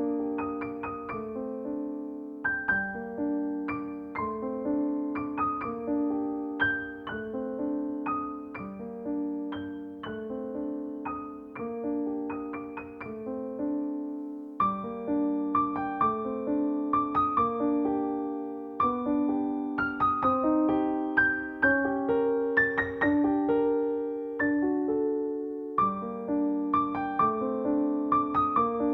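Background piano music: a gentle melody of struck notes over held chords, with no speech.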